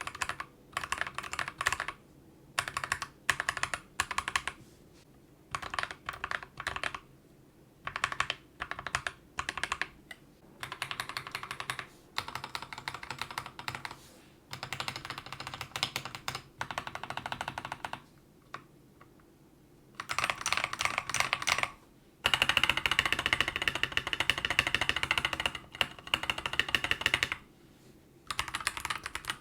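Akko CS Jelly White mechanical keyboard switches being typed on, in short bursts of rapid keystrokes with pauses between, then in longer stretches of continuous typing in the second half.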